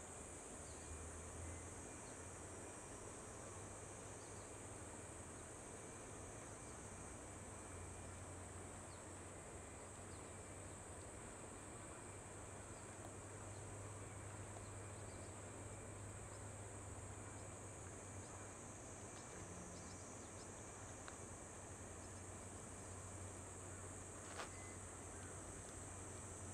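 Insects chirring in one steady, unbroken high-pitched drone over a faint, even rushing hiss, with a single sharp click near the end.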